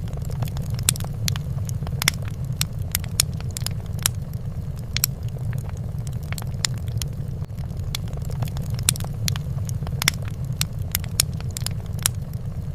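Fireplace fire crackling: irregular sharp pops and snaps, several a second, over a steady low rumble.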